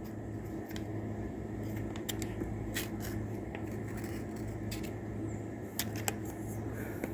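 Machete blade drawn against a sharpener, heard as a few short, irregular metallic clicks and scrapes, over a steady low hum.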